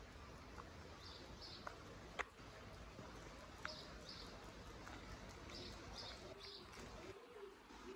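Quiet street ambience with faint small-bird chirps in pairs and a few light clicks. Near the end a dove starts cooing, a repeated low rising-and-falling call.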